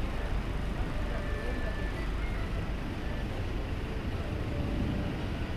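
Steady city street ambience: a continuous low rumble of road traffic with no distinct single event.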